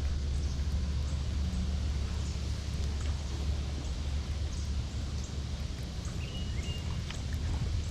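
Outdoor ambience: a steady low rumble with faint scattered ticks, and a short bird chirp about six seconds in.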